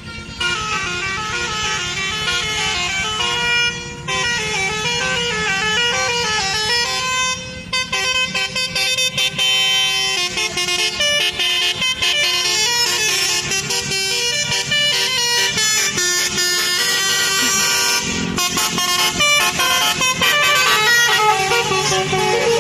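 Bus 'basuri' telolet horn, a multi-note musical air horn, playing a fast tune of stepping notes, with short breaks about four, seven and eighteen seconds in. A low engine hum runs underneath.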